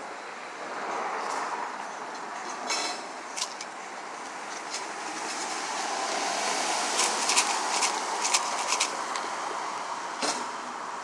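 Street traffic: a car or pickup passes close by, its tyre and engine noise swelling to its loudest about six to eight seconds in, with a quick run of sharp clicks as it goes by.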